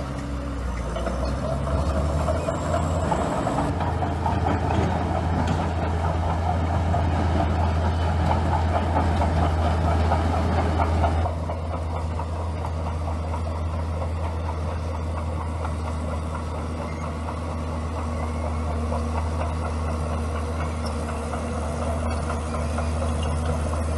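Bulldozer's diesel engine running with a steady low drone. It works harder for the first ten seconds or so, then eases off abruptly to a lower, steadier note.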